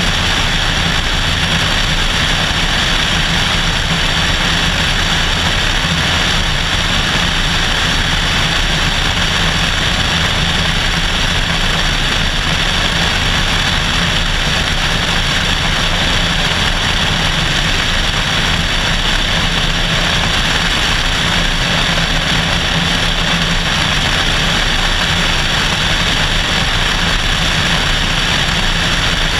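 Cessna 172SP in flight: its four-cylinder Lycoming IO-360 engine and propeller running steadily at a constant power setting. Heavy wind rush over the externally mounted camera's microphone.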